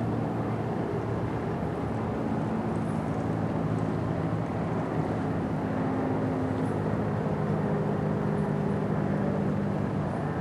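A steady low mechanical drone: a hum of several pitches that shifts slightly in pitch, over an even background hiss.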